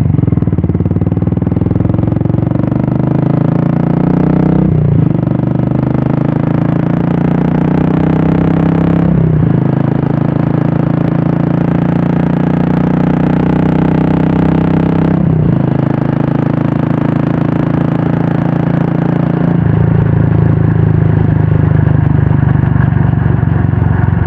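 Royal Enfield Classic 350's single-cylinder engine running through a Red Rooster aftermarket exhaust as the bike accelerates through the gears. The note climbs and then breaks briefly three times at the upshifts, and settles into a steady cruise near the end.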